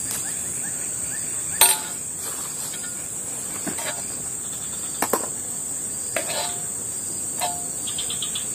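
Steady high-pitched insect drone, with four sharp clicks spread through it, the last two ringing briefly.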